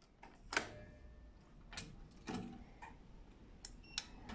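A sharp click of a rotary power isolator switch being turned on, about half a second in, followed by several lighter clicks and knocks of control-panel and computer switches being operated, with a faint low hum setting in partway through.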